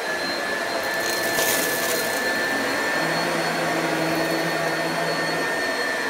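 Oreck upright vacuum cleaner running steadily over carpet, its motor giving a steady high whine.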